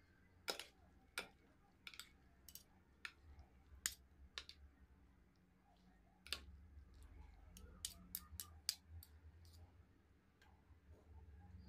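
Spoon clicking and scraping against a serving dish while stirring macaroni salad: irregular sharp clicks, a couple a second, over a faint low hum.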